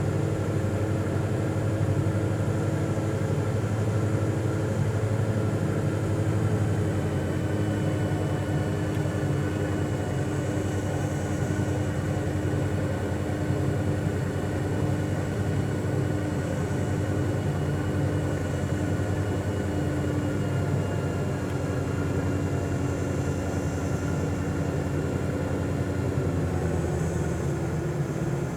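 Steady low mechanical drone with several steady tones over it, unchanging throughout.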